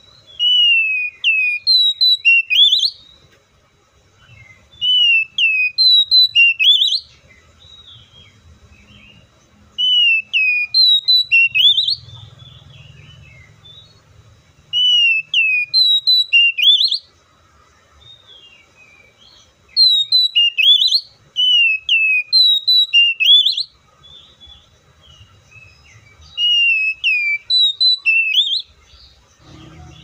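Oriental magpie-robin singing: six loud phrases of whistled notes, each two to three seconds long and built from the same pattern of falling and rising sweeps, with pauses of a couple of seconds between them.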